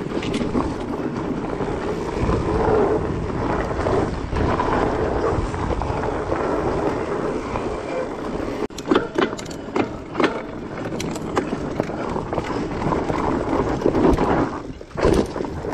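Fat-tyre mountain bike rolling along a dirt and grass singletrack: a steady rush of tyre and trail noise. There are sharp knocks and rattles from about nine to twelve seconds in as the bike goes over rough ground.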